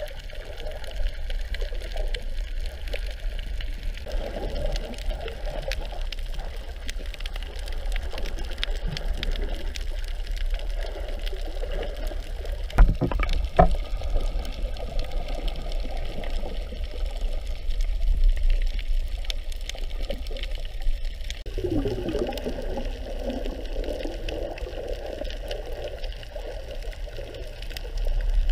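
Muffled underwater ambience picked up by a submerged camera: a steady wash of moving water with a low rumble, and a couple of sharp knocks about halfway through.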